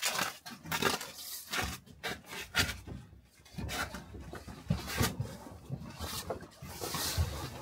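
Pieces of wood being handled and laid in place: irregular wooden knocks and clunks with scraping and rubbing between them.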